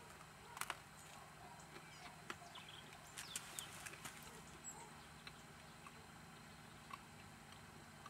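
Near silence with faint, scattered clicks and ticks: a man chewing a mouthful of bread dipped in olive oil.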